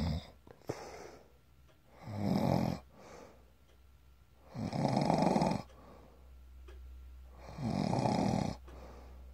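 A sleeper snoring: three long snores, each about a second, coming about every three seconds.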